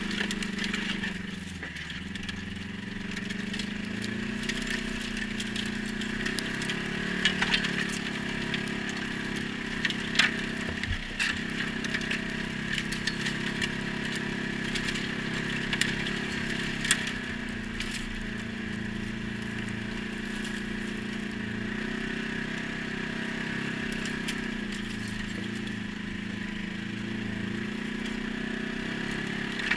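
ATV engine running steadily under way, its pitch drifting a little up and down with the throttle, with a handful of sharp clicks or knocks scattered through it.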